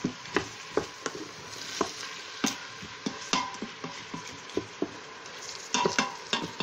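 Chopped red onions sizzling in hot oil in the stainless steel inner pot of an Instant Pot on sauté, stirred with a wooden spoon that knocks irregularly against the pot, with a brief ringing clink near the end.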